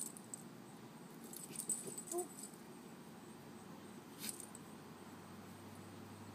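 Two small dogs playing, a Morkie puppy and a white fluffy dog: faint jingling and clicks, with one brief high cry about two seconds in.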